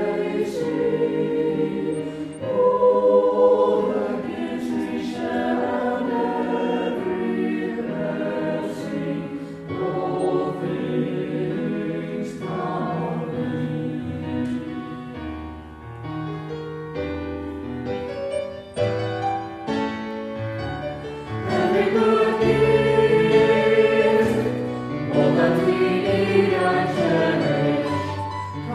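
A choir singing, with sustained notes that move from chord to chord.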